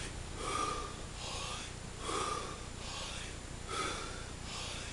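A man doing Wim Hof method breathing: full breaths drawn in and pushed out through the open mouth in a quick, even rhythm, about three in-and-out cycles, one every second and a half or so.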